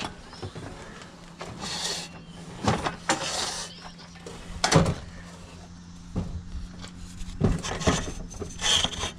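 Stored belongings being shifted and handled: irregular knocks, clunks and scrapes, the sharpest a knock nearly five seconds in, over a steady low hum.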